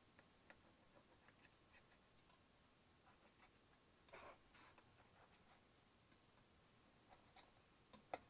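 Kitchen knife cutting and scraping along the edge of a brass canister: faint scattered ticks and light scrapes, with a louder scrape about four seconds in and a sharp click near the end.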